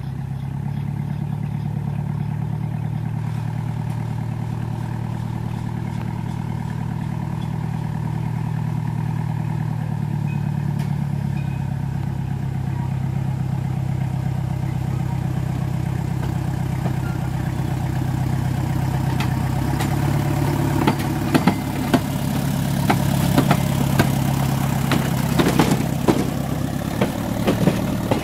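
Miniature railway diesel-outline locomotive's engine running steadily as it pulls away and comes closer. In the last several seconds its wheels clack sharply over the rail joints and points as it passes close by.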